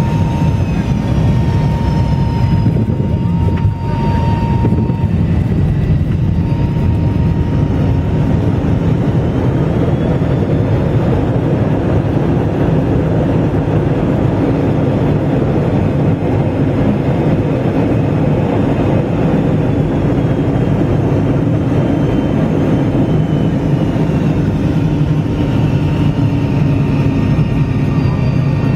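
Cabin noise inside an MD-88 airliner during landing and rollout on the runway: the steady, loud rumble of its tail-mounted Pratt & Whitney JT8D turbofans and the airframe. A faint steady whine drops out about five seconds in.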